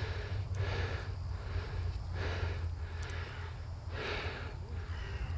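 A person breathing close to the microphone, a soft noisy breath about every second, over a steady low hum.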